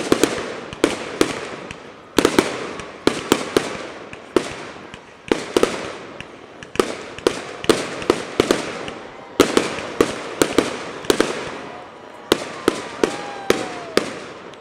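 Aerial fireworks show: a rapid, uneven series of sharp bangs from shells bursting, often two or three a second, each trailing off in echo.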